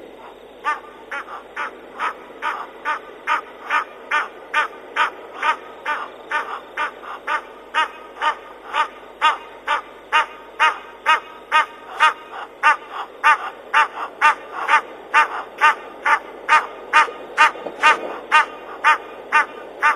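An animal calling over and over in a steady, even rhythm, about two short pitched calls a second, starting about a second in and keeping on without a break, over a steady hiss.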